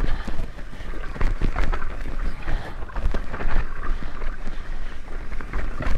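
Mountain bike descending a dirt trail: tyres rumbling over the ground and the bike rattling with frequent irregular clicks and knocks, with wind buffeting the microphone.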